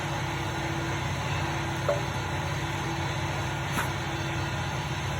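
Steady low hum of background machinery, with two light clicks about two and four seconds in as transmission parts are handled.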